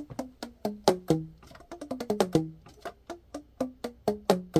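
Keys of a Yamaha YAS-275 alto saxophone pressed and let go by the fingers without blowing. A quick, uneven run of clicks, each with a short pitched pop as the pads close over the tone holes, the pitch changing from key to key.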